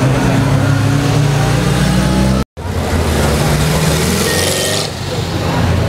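Vintage sports car's engine running at low speed, growing louder as the car passes close by in the second half. The sound cuts out for a moment about halfway.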